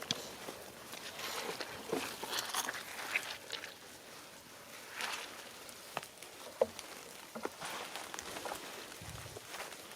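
Footsteps through wet leaf litter and brush: irregular soft crunches and small snaps as a person walks quietly through the woods.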